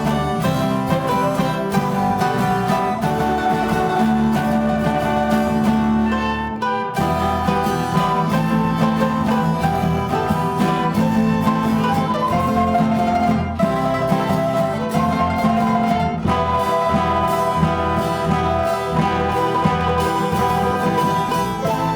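Instrumental music of plucked and bowed string instruments, guitar-like strings with a fiddle, playing continuously with a brief break about seven seconds in.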